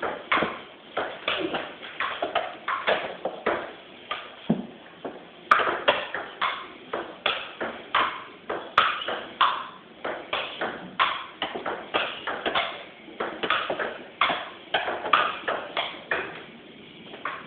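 Table tennis ball in a long rally, clicking off the paddles and bouncing on the table in a steady run of sharp hits, about two to three a second.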